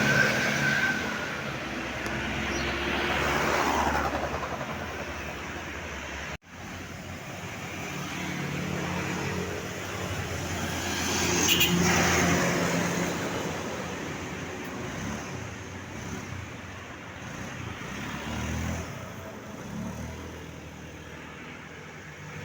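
Tour buses driving past, the engine and road noise swelling and fading twice. A multi-tone telolet horn trails off in the first second, and the sound breaks off sharply for a moment about six seconds in.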